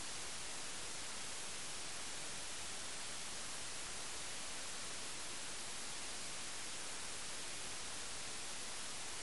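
Steady hiss of static on a soundless video track, with no other sound over it.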